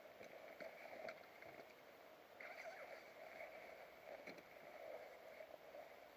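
Near silence: faint outdoor background with a few soft clicks and light rustling.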